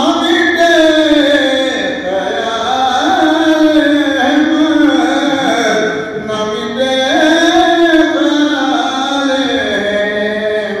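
A man's voice singing a naat, an Urdu devotional hymn, in long, wavering held notes that break for breath every second or two.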